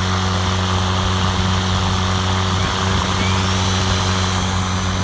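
EGO 56-volt cordless electric lawn mower running, its motor and spinning blade giving a steady, even whirring hum.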